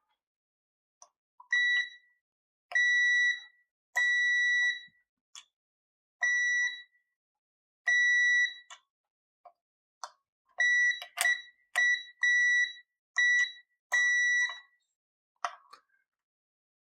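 A multimeter's continuity beeper sounds about ten times, in beeps of uneven length on one high pitch, with faint probe clicks between them. Each beep marks the probes touching two points that are electrically connected, here in a guitar's electronics cavity and its shielding, tested before copper tape is applied.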